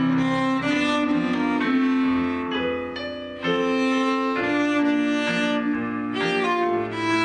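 Cello and piano duo playing: the cello bows held notes over piano chords, with a short soft passage about three seconds in.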